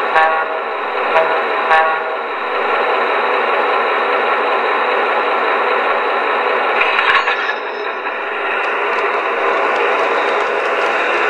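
MTH RailKing FM Trainmaster O-gauge model diesel locomotive's sound system playing a steady diesel engine rumble through its small speaker, with wheel and track clatter. There are two brief sharper sounds in the first two seconds, and a louder clatter comes about seven seconds in.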